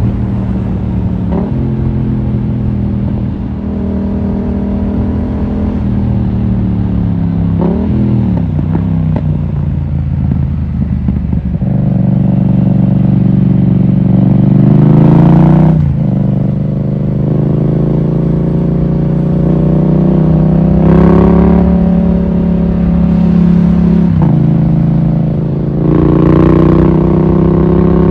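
Yamaha MT-07's 689 cc crossplane parallel-twin engine pulling under throttle. Its pitch climbs, breaks off at each gear change and climbs again, several times over.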